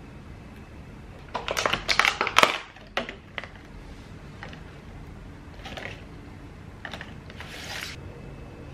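Thin clear plastic clamshell food box being handled and opened: about a second and a half in, a second of loud crackling and clicks, then a couple of single clicks and a few softer plastic rustles.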